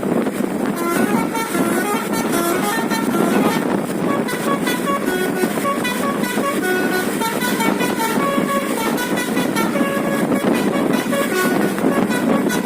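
Basuri telolet bus horn playing a quick melody of short, stepping notes over steady background noise.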